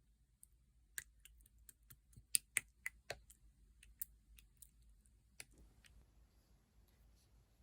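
Mixed clear slime being pressed and worked by hand, giving a quick irregular run of sharp little clicks and pops that stops about five and a half seconds in.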